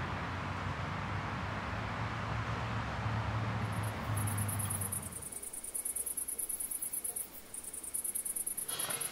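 A truck engine idles with a steady low hum, which cuts off about five seconds in. Crickets chirp in a fast, high trill from about four seconds on.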